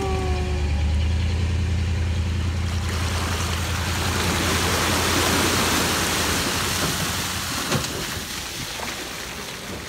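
An engine running steadily with a low hum that fades away after about six seconds, with a rushing noise swelling over the middle.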